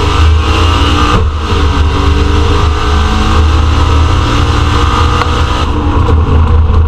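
Twin-turbo manual-gearbox car running at full throttle down a quarter-mile drag strip on 8 psi of boost. The engine note climbs in pitch, breaks briefly at an upshift about a second in, then climbs again. Near the end the sound loses its upper edge.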